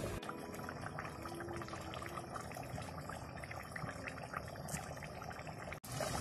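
Thick coconut-milk sambal bubbling at a boil in a wok, a steady scatter of small pops as the sauce reduces. The sound drops out for an instant near the end.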